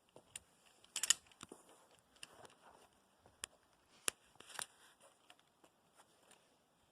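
A few faint, scattered clicks and scuffs, with a quick cluster about a second in as the loudest.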